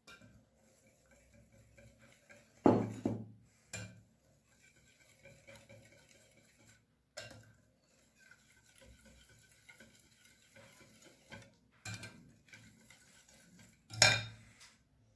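A utensil stirring cake batter in a mixing bowl, with faint scraping and light clinks. There are two loud knocks against the bowl, about three seconds in and near the end.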